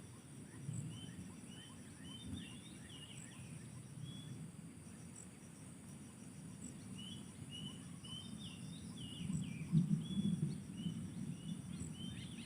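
Songbird chirping in quick runs of short notes, two bursts of them, over a steady high insect buzz. A low rumble swells about ten seconds in.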